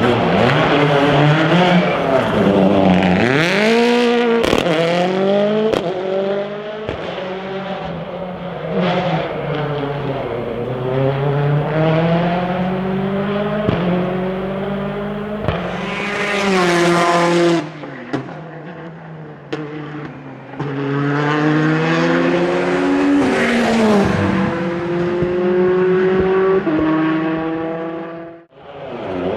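World Rally Car engines at full effort on a racing circuit, revving up in steps through quick gear changes and dropping off under braking, with a few sharp cracks. The sound cuts out abruptly near the end.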